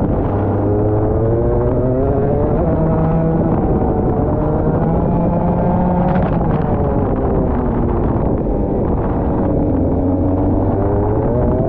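Rotax Max 125cc two-stroke kart engine under way, its pitch rising as it accelerates, holding, dropping back with the revs for a corner, then climbing again near the end.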